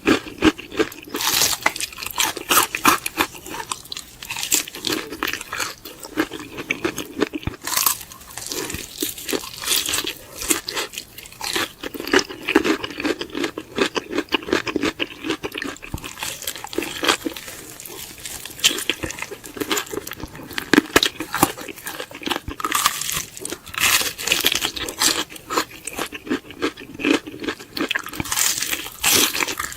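Close-miked biting and chewing of crispy fried chicken: dense, irregular crunches and crackles throughout.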